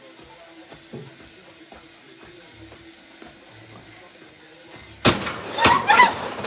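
A low, steady hum, then about five seconds in a sudden loud bang, like something bursting in a kitchen, followed at once by startled yells and a rising yelp.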